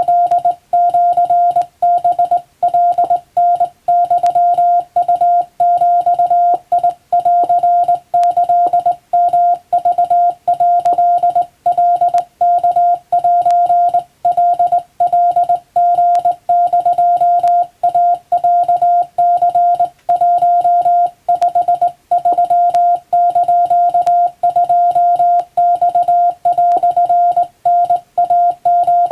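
Hand-keyed Japanese (wabun) Morse code: a single steady beep tone switched on and off in dots and dashes, with short breaks between characters, sending practice telegram text.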